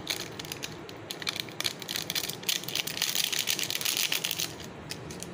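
Crinkling and crackling of a foil-lined Maggi masala sachet as it is shaken and tapped to empty the spice powder into a glass bowl. The crackle is densest in the middle and thins out near the end.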